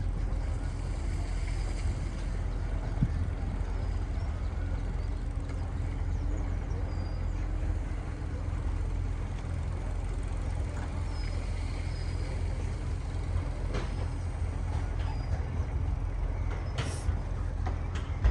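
Houseboat's engine running steadily, a constant low drone, heard from on board with a few faint high chirps above it.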